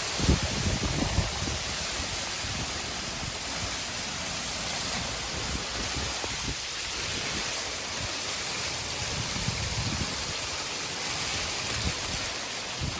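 Heavy rain falling as a steady, dense hiss, with low gusts buffeting the microphone, the strongest just after the start.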